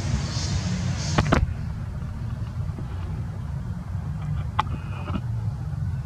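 Steady low rumble of a running engine, with a few sharp clicks about a second in and another past the middle.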